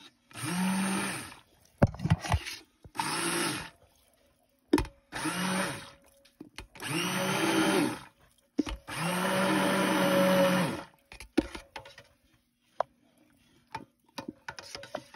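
Stick blender run in five short pulses in a stainless steel pot of cold-process soap batter, the motor whirring and the head churning the liquid with each pulse: pulse-blending the oils and lye water toward emulsion. After the last pulse, a few light knocks and clicks.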